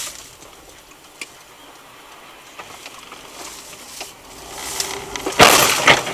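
A sudden loud crash about five and a half seconds in, lasting about half a second, then a second shorter bang: a vehicle collision.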